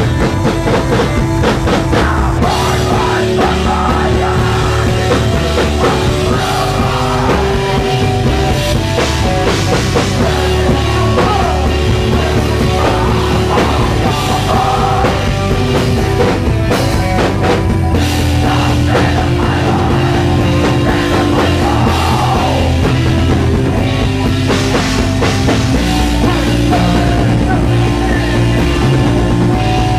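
Heavy rock band playing loud, recorded live: a drum kit pounding under held keyboard synthesizer notes that step from one pitch to another.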